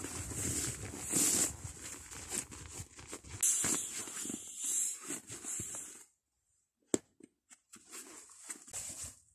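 Tent groundsheet and fabric rustling as they are pulled and handled. The rustling stops about six seconds in and gives way to a sharp click and a few light taps.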